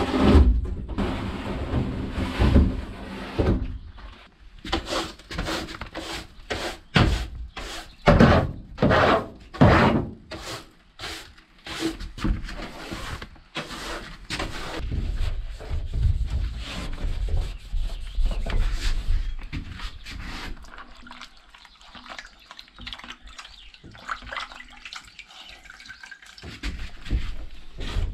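Irregular knocks and clatter of hands-on work on a van's interior panels: a quick run of sharp knocks in the first half, then quieter scraping and handling noises.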